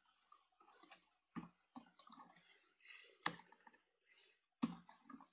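Typing on a computer keyboard: a run of faint key clicks, with a few louder keystrokes among them.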